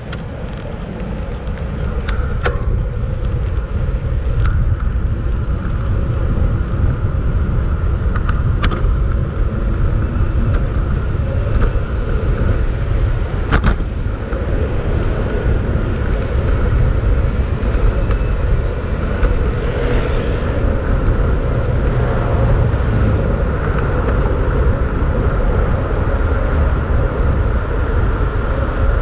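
Street noise heard from a bicycle riding through city traffic: a loud, steady low rumble with motor vehicles in the background and scattered sharp clicks and knocks.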